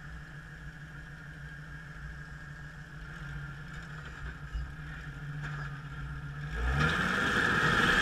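Rock-crawling Jeep's engine running low and steady, then revving up with a rising pitch and growing louder about six and a half seconds in, as it pulls up over the rocks.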